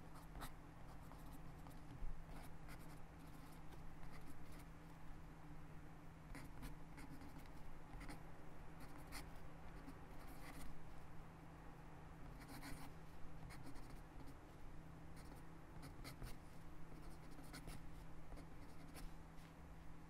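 Sharpie Pen writing cursive on lined notebook paper: quiet, irregular scratches and ticks of the tip against the paper, one for each stroke and letter.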